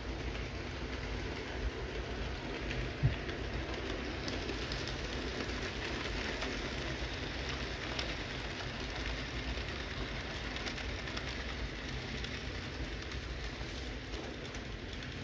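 Model train rolling along sectional track: a steady rattling hiss of small wheels on the rails, with light clicks and one sharper click about three seconds in.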